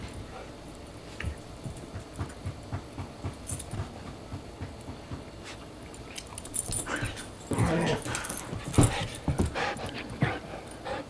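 Husky-type dogs playing with a plush toy: soft scuffling and small knocks at first, then louder bursts of tussling and dog vocalizing in the second half.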